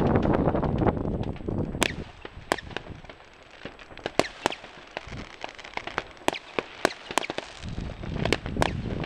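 Fireworks going off: a string of sharp, separate bangs and cracks at irregular spacing, about one a second. Wind rumbles on the microphone at the start and again near the end.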